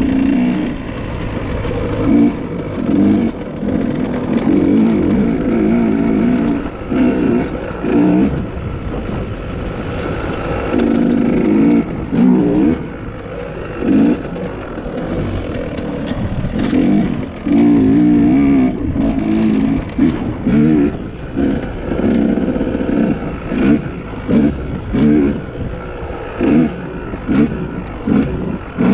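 KTM dirt bike engine being ridden off-road, revving up and falling back over and over as the throttle is worked. The surges come shorter and quicker in the second half.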